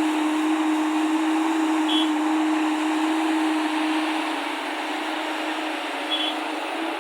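Heavy earthmoving machinery's diesel engine running steadily with a constant low hum, with two brief high chirps, one about two seconds in and one near the end.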